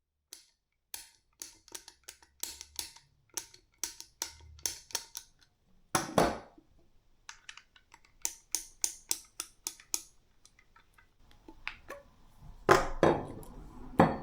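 A rapid series of sharp clicks and clacks of small hard parts, about three to four a second, with louder knocks in the middle and near the end.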